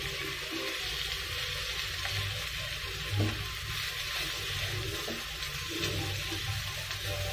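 Shrimp frying in oil with onion paste in a non-stick wok, sizzling steadily while a wooden spatula stirs and scrapes them around the pan, with one louder knock about three seconds in.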